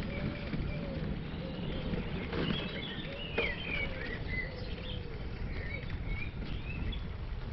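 Bicycle tyres rolling over light gravel with a steady low rumble, while birds chirp in short high calls through the middle.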